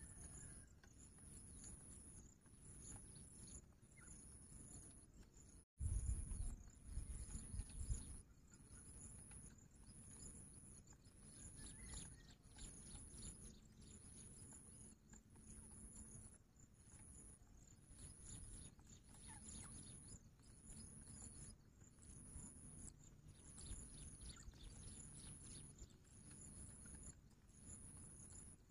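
Quiet rural background with an insect's high, thin buzz pulsing steadily, about one pulse every second and a quarter. About six seconds in the sound briefly cuts out and a couple of seconds of loud low rumble follows.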